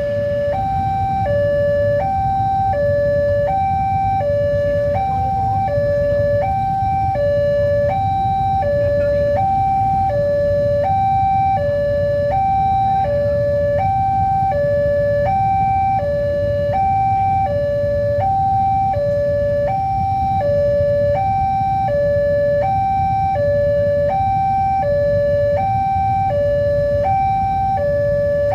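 Railway level-crossing warning alarm: an electronic two-tone signal alternating steadily between a higher and a lower note, each held about two-thirds of a second, sounding while the crossing is closed for a train. A steady low rumble runs underneath.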